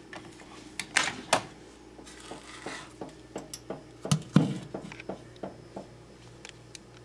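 Irregular clicks, taps and knocks of hard objects being handled, with a short rustle about two seconds in, over a low steady hum.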